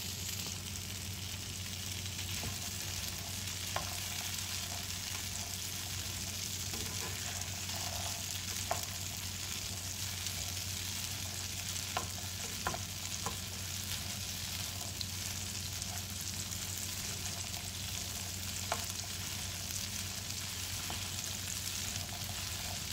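Boiled black chickpeas (kala chana) sizzling as they fry in hot oil in a non-stick frying pan, a steady hiss throughout. A few short clicks of the spatula against the pan as they are stirred.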